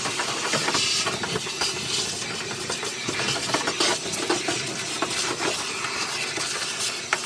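Angle grinder grinding old body filler off the rusty steel floor pan of a 1988 Chevrolet Monte Carlo SS: a steady, harsh grinding hiss with a constant crackle of short scrapes.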